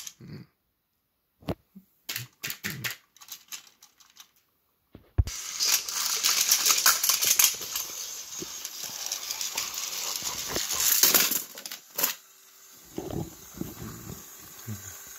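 Plastic toy trains clicking and clattering: scattered knocks at first, then about seven seconds of dense, fast mechanical rattling, then a few quieter knocks over a faint steady hum.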